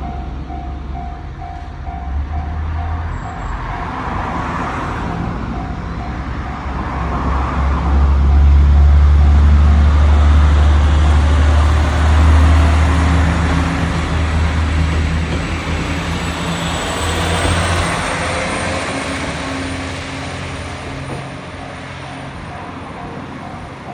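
Japanese level-crossing alarm bell ringing at about two strokes a second, while a train passes over the crossing with a loud low rumble that swells to its peak mid-way and fades; the bell stands out again near the end once the train has gone.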